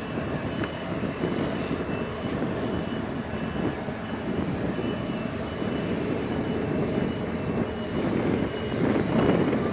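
Steady low rumbling noise of strong wind on the microphone, with faint, high reversing-alarm beeps from container terminal machinery coming and going. The rumble swells near the end.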